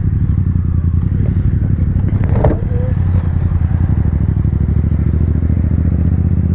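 Yamaha MT-07's parallel-twin engine running steadily at low revs as the bike rolls slowly in traffic, its exhaust loud. A brief sharp clatter about two seconds in.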